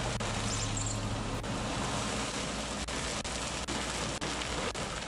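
Taskmaster Titan dual-shaft industrial shredder running: a steady, dense mechanical noise with a constant low hum.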